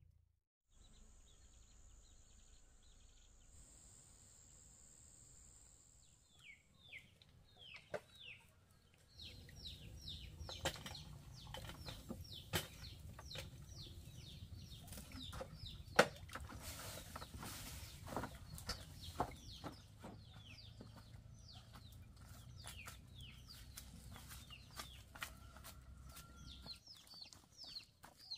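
Chickens clucking and chirping, many short high downward chirps in quick succession from about six seconds in, with scattered sharp clicks. A faint steady high whine comes before the chirping starts.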